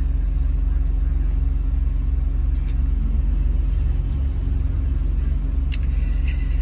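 Steady low engine and road rumble heard inside a vehicle's cabin, an even drone with a couple of faint clicks over it.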